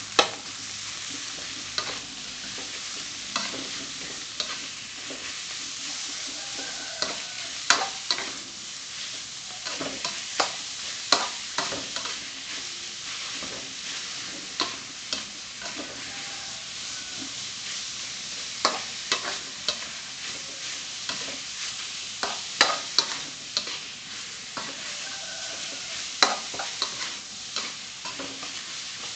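Minced pork sizzling in a hot wok while a metal spatula stirs and tosses it. Irregular sharp clacks and scrapes of the spatula against the wok run over a steady frying hiss.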